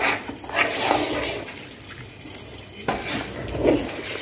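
A spatula stirring and folding cooked rice and chicken in a metal pot, in two rough strokes about three seconds apart.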